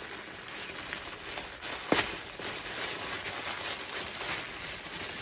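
Clear plastic bubble wrap crinkling and rustling as it is handled and pulled open by hand, with one sharper snap about two seconds in.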